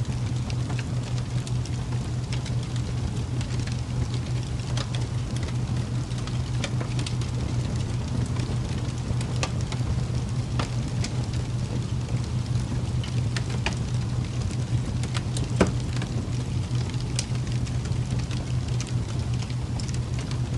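A steady ambient sleep-soundscape bed: a constant low rumbling noise with sparse, irregular sharp crackles and ticks scattered through it, one a little louder about fifteen seconds in.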